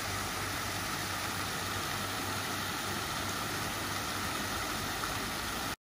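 Water falling in thin streams from a fountain arch into a shallow pool: a steady splashing hiss with a low hum underneath, cutting off suddenly near the end.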